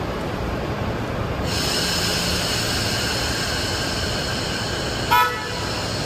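Blue DR2303 diesel railcar's horn giving one short toot about five seconds in, the signal just before it pulls away. A steady high hiss starts about a second and a half in, over the rumble of the idling railcar.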